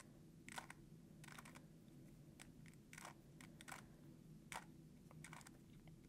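Faint plastic clicks of a 3x3 Rubik's cube's layers being turned by hand, about a dozen irregular clicks as a move sequence is run through.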